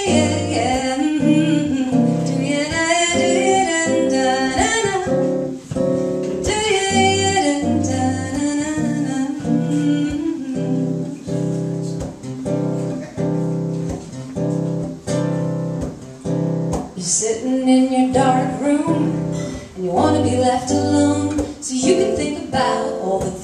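A woman singing live while playing an acoustic guitar.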